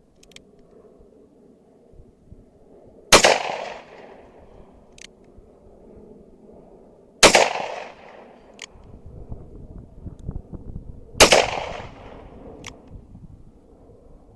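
A .357 handgun fired three times at a slow, even pace, about four seconds between shots. Each sharp report trails off briefly, and a faint click follows each shot.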